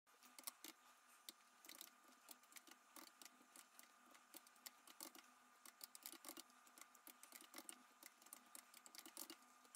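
Typing on a Commodore 64 keyboard: quiet, irregular keystroke clicks, several a second, as a line of BASIC is entered.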